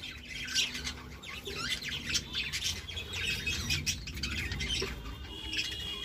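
A budgerigar colony chirping and chattering: many short, overlapping calls, with one longer held call near the end.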